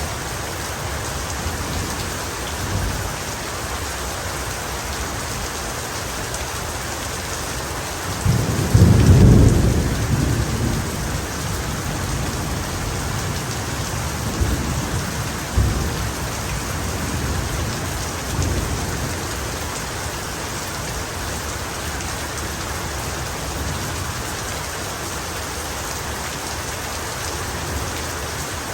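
Steady heavy rain falling, with a loud rumble of thunder about eight seconds in that fades over several seconds, and fainter rolls of thunder later.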